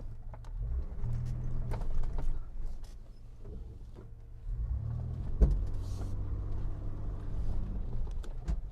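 1995 Mitsubishi Montero V43 engine pulling under load as the 4x4 reverses up a slope, its pitch rising in two surges. There is one sharp knock about five and a half seconds in.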